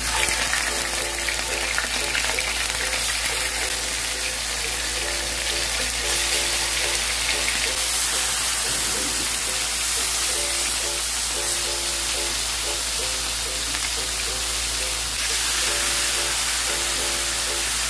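Marinated blue marlin steaks sizzling loudly as they fry in hot oil in a nonstick pan. The sizzle starts suddenly as the fish goes in. Light background music plays underneath.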